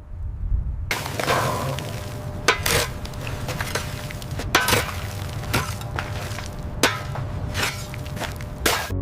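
A string of irregular knocks and clanks, about nine in all, over a steady hiss and low rumble that starts about a second in.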